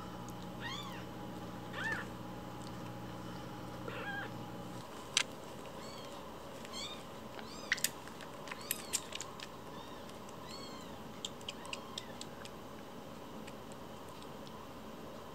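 Week-old kittens mewing in short, high, arching cries while being syringe-fed milk. A steady low hum stops about five seconds in, and a few sharp clicks come after.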